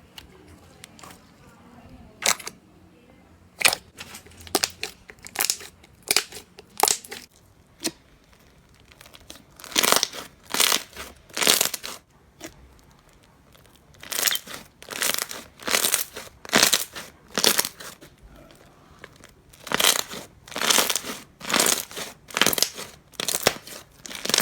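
Crunchy slime being squeezed and pressed by hand: a series of short crackling crunches, about one or two a second, in runs with short pauses between them.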